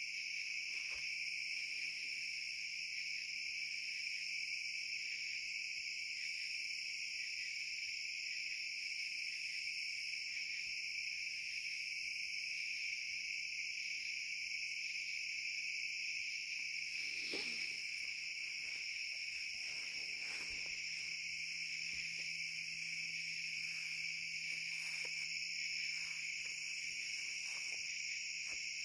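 Steady chorus of crickets and other night insects, a continuous high-pitched trill, with a few faint handling clicks, the clearest about halfway through.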